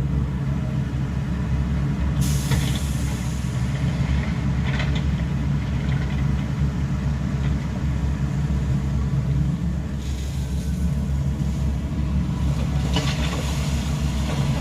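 A large engine running steadily, with bursts of hiss about two seconds in and again near the end.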